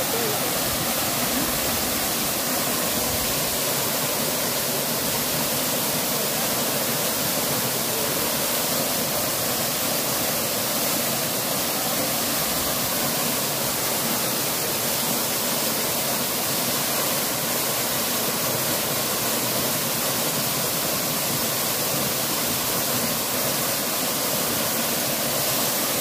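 Two waterfalls pouring down a rock face into a pool: a steady, even rush of falling water.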